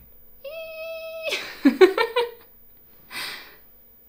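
A woman in a fit of the giggles: a high held squeak that breaks about a second in into a quick run of short laughs, then a sharp breath a second later.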